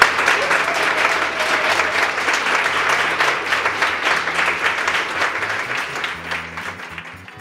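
Audience applauding, many hands clapping at once, the applause fading out near the end.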